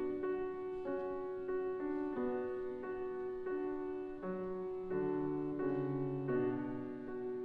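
Grand piano played solo: a slow classical piece, single melody notes changing every half second or so over held lower notes.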